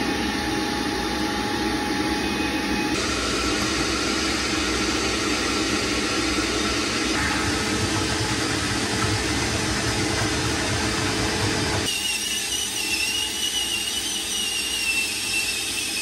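Wet/dry vacuum running steadily, sucking standing water out of a washer tub that won't drain. About twelve seconds in a wavering high whistle joins the noise.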